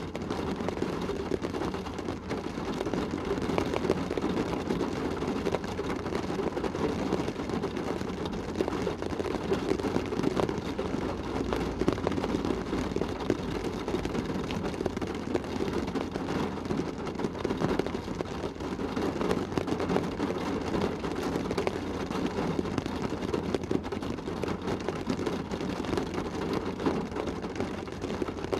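Shower rain drumming steadily on a car's roof and windows, heard from inside the car as a dense patter of many drops.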